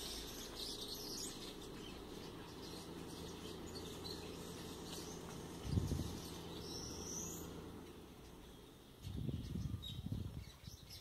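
Birds chirping in the background over a low steady hum, with a single knock about halfway through and a stretch of rustling handling noise near the end as the pump's top cylinder and packing are worked by hand with a screwdriver.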